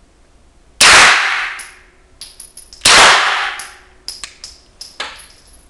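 Two suppressed shots from a 9mm HK USP SD pistol fitted with a Brügger & Thomet Impulse IIA silencer, firing supersonic rounds, about two seconds apart. Each shot is a sharp crack, the bullet breaking the sound barrier, which keeps the shot quite audible despite the silencer. Each crack echoes and dies away over about a second, followed by a few short, light clinks.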